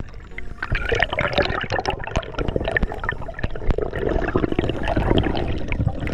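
Water rushing and gurgling around an underwater action camera's housing as a freediver swims up toward the surface, with many small clicks and knocks scattered through it.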